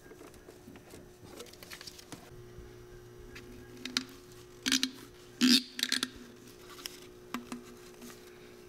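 A plastic PCV oil trap and rubber breather hoses being handled and fitted together: scattered rustles, rubs and light plastic clicks, with a few sharper ones around the middle, over a faint steady hum.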